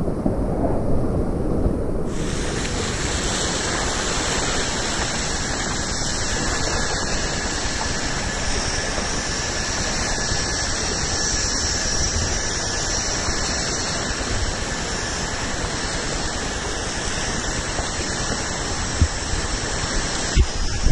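Whitewater of a flooded river rapid rushing steadily around a kayak, with a bright hiss from about two seconds in. Two brief knocks near the end.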